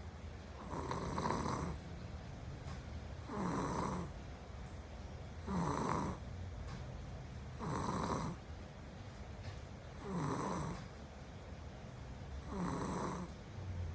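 A small child snoring in a steady rhythm: six snores, about one every two and a half seconds, with quieter breathing between them.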